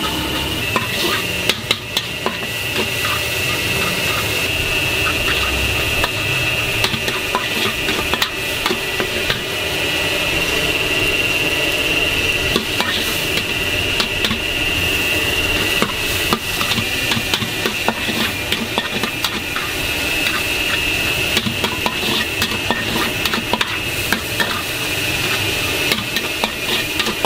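Minced meat sizzling in a large black wok while a long-handled metal spatula scrapes and taps against the pan again and again, stir-frying it.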